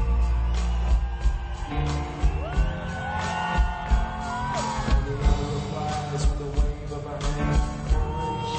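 Live band performance: two men singing in harmony, one voice holding high notes with vibrato, over a band with regular drum hits and a deep bass drum.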